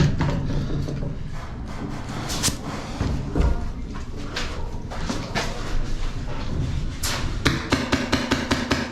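Airsoft gunfire exchanged in a building: scattered sharp shots and BB hits, then a quick string of about ten shots near the end.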